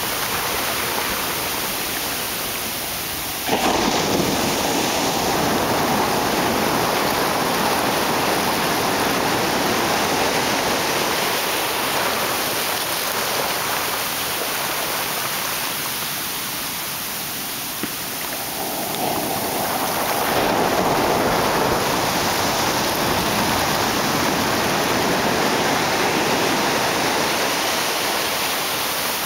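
Ocean surf and foamy water washing up over the sand at the shoreline: a continuous wash of noise that jumps up sharply about three and a half seconds in and swells again about twenty seconds in.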